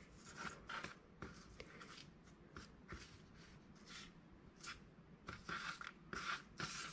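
Faint soft scuffs and light taps of rolled paper quilling coils being slid across and set down on a table, a little louder and more frequent near the end.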